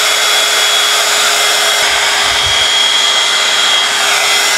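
Handheld electric heat gun running, a steady rush of air with a high motor whine. It is switched off at the very end, and the whine begins to fall as the fan winds down.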